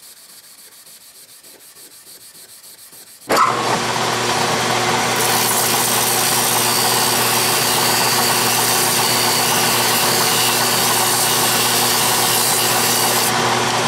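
A Scotch-Brite pad rubbed by hand over the face of a lathe chuck body, quiet and scratchy. About three seconds in, a Craftsman lathe's motor cuts in at full speed with a steady hum, and an abrasive strip held against the spinning chuck's rim adds a loud steady hiss.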